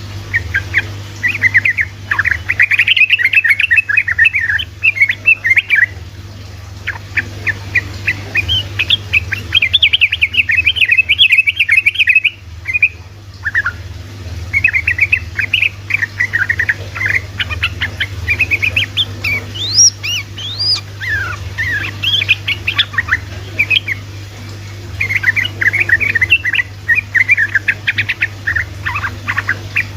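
Yellow-vented bulbul (trucukan) singing its fast, chattering 'ropel' song: dense runs of quick, bright chirps in phrases of a few seconds with short breaks between them.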